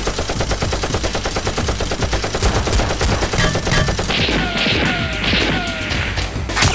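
Rapid automatic gunfire sound effects, a fast run of shots for the first few seconds, then bursts with falling ricochet-like whines and a single loud bang near the end.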